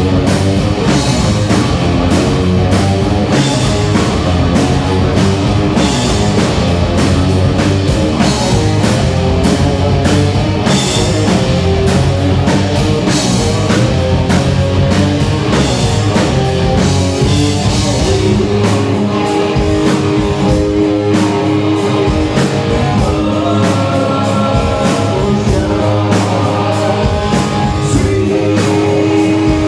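Rock music with drums, electric guitar and singing. Past the halfway point the deep bass and drums thin out, and held sustained notes carry on.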